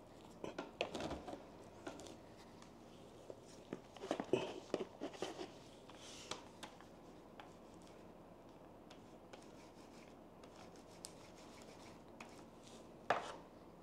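Faint, scattered scrapes and light clicks of a paint roller being worked in a paint tray and rolled over a tabletop, busiest in the first half and quieter after.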